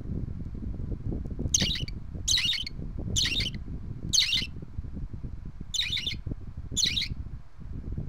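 Budgerigar chick calling: six short, high calls in quick succession with a pause before the last two, over the steady low rush of an electric fan's air blowing on the microphone.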